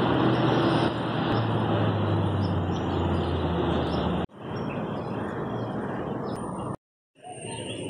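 Outdoor background noise with a vehicle engine running close by as a low steady hum. The sound cuts off abruptly twice, with a short silence near the end, where the footage is edited together.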